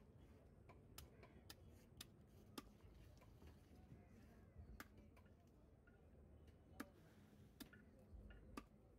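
Heavy knife scraping the scales off a large katla carp: faint, sharp clicks at irregular intervals, about one a second, as the blade strokes flick scales loose.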